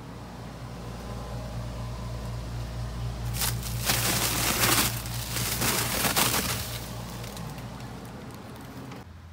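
A plastic bag of cubed ice being pulled out of a store ice freezer: the plastic crinkles and rustles and the ice shifts for about three seconds, a little after the start. A steady low hum runs underneath.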